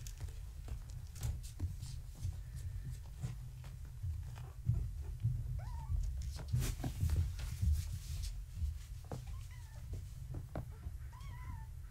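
Young kittens giving a few short, faint mews, about halfway and twice near the end, amid scattered light taps and thumps of kittens scampering on blankets. A low rumble runs underneath.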